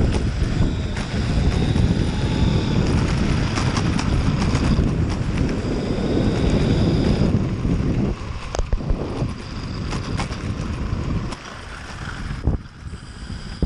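Trampa electric mountainboard rolling along a concrete path, with wind rushing over the microphone and tyre rumble, and a faint whine from its twin motors and E-Toxx helical gear drives. The noise drops after about eight seconds, and a few sharp clicks come in the quieter part.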